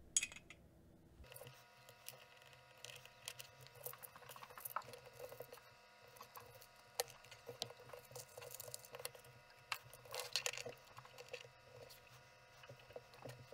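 Faint, scattered clicks and light rattling of small metal screws, nuts and washers being picked through by hand in a plastic compartment organizer box.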